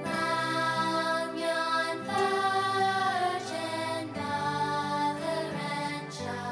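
Slow, soft music with long held notes that change every second or two.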